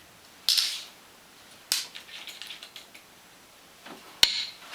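Several sharp clicks and short clattering noises a second or more apart, the loudest near the end, like hard objects being handled and knocked together.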